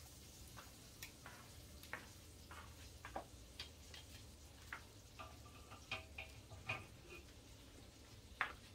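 Light, irregular clicks and taps of kitchen utensils against dishes, with a few short clinks about halfway through, over a low steady hum.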